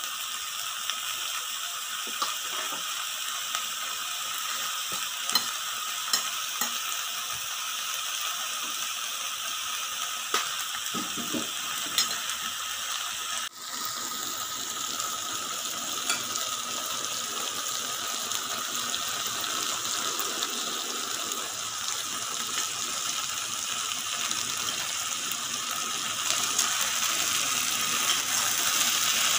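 Sliced beef and vegetables sizzling steadily on a hot tabletop grill pan, with a few sharp clicks of a stirring utensil against the pan. The sizzle grows a little louder near the end.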